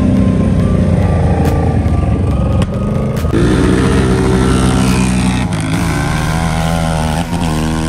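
Sport ATV engines running hard at close range, loud from the start as a quad passes near. A little over three seconds in a new engine note comes in, and in the last couple of seconds the engine pitch rises and falls as the quads rev and accelerate down the dirt strip.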